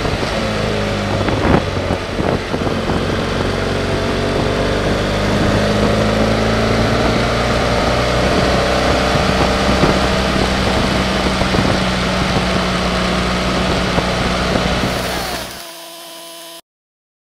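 BMW F800GS's parallel-twin engine running at a steady road pace, with wind noise over the microphone and a couple of knocks early on. About fifteen seconds in the sound drops away, and a second later it cuts to silence.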